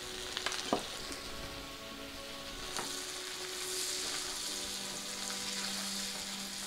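Butter and onion sauce sizzling in a frying pan with a steady hiss, with a few light knocks in the first second. A silicone spatula stirs whole baby onions through it, and the hiss grows a little brighter from about halfway.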